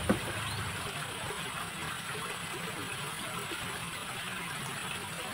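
Stream water running steadily, with one brief knock just after the start.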